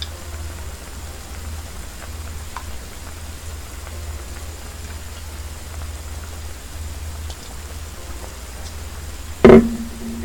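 Pot of beef and radish soup simmering on the cooker, a steady bubbling hiss with a few faint clinks of the spoon. Near the end, one loud knock of kitchenware with a short ringing tone.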